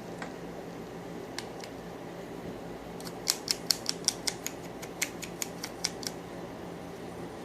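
A quick run of a dozen or so sharp, light clicks, starting about three seconds in and lasting about three seconds, from a screwdriver and parts being handled as an Andis Outliner trimmer's housing is screwed back together.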